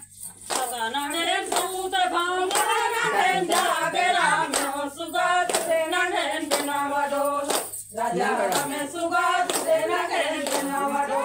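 A group of women singing a Chhattisgarhi Suwa (Suga) folk song together, keeping time with hand claps about once a second. The song breaks off briefly between lines near the start and again about eight seconds in.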